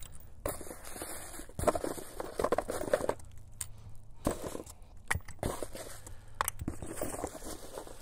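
Hands handling a small cardboard box of hardware: irregular rustling and scraping with scattered light clicks and taps.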